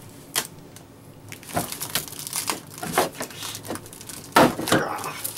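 Packaging rustling and crinkling with scattered sharp clicks and knocks as zip ties holding a pedal drive unit in its shipping box are cut, with a louder knock near the end.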